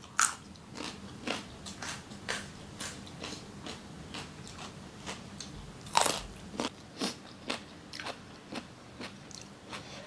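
Crunchy chewing of a raw carrot stick: sharp crunches about twice a second, with a louder bite about six seconds in.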